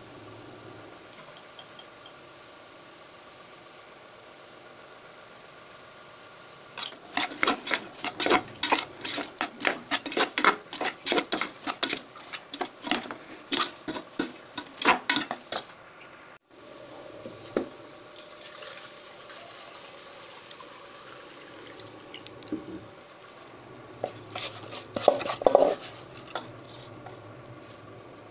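Metal spoon stirring a thick vegetable mixture in a metal cooking pot, clinking and scraping against the pot in a rapid run of strokes, about three a second. The strokes start after a quiet stretch and stop abruptly a little past halfway, and a few more clinks come near the end. A steady low hum lies underneath throughout.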